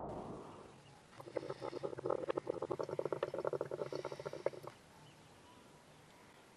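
Water bubbling in a hookah's base as the smoker draws through the hose: a rapid gurgling run of small pops that starts about a second in and stops abruptly after about three and a half seconds.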